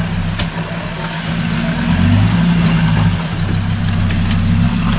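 Off-road 4x4's engine running steadily at low revs as it crawls over rocks, with a few faint clicks.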